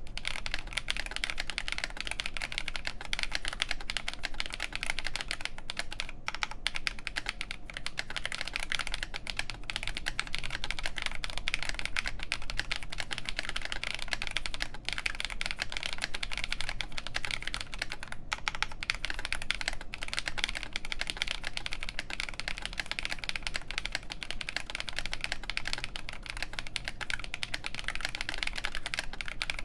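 Fast, continuous typing on a Nooir Noland N1 mechanical keyboard with an FR4 plate, MTNU Graphite keycaps and factory-lubed OneKey Momo Oolong linear switches on 58g springs. It is a dense, steady stream of keystroke clacks with barely a pause.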